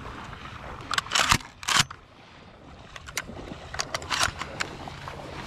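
Dry marsh reeds crackling and rustling in several short bursts as they are pushed and brushed against, the loudest about a second in, with more around four seconds.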